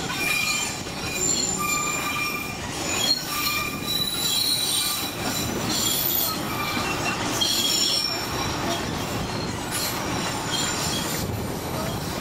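St. Kitts Scenic Railway train rolling along, its steel wheels squealing on the rails in many short, high-pitched squeals at shifting pitches over the steady running rumble.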